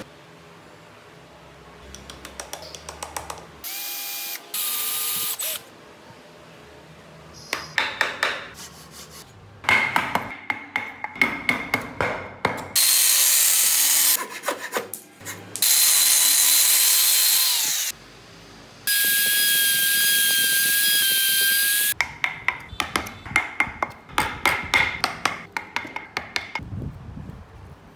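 Several short runs of a handheld rotary sander with a sanding disc, each lasting a few seconds; the whine of one run sinks as it spins down. Between the runs come quick, sharp clicks and scrapes of a hand gouge cutting chips from wood.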